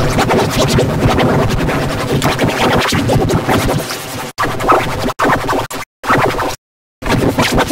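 Cartoon soundtrack pushed through stacked audio effects: a dense, distorted, scratchy wash of music. From just past the middle it is chopped by several abrupt drop-outs into silence, the longest near the end.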